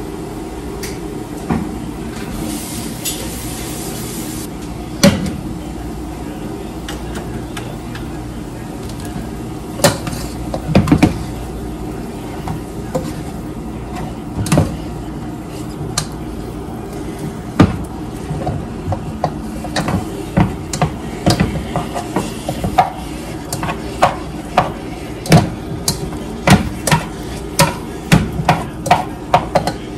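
A cooking utensil knocking and scraping against a frying pan as food is stirred. The sharp clicks come quicker and more often over the last dozen seconds, over a steady low hum.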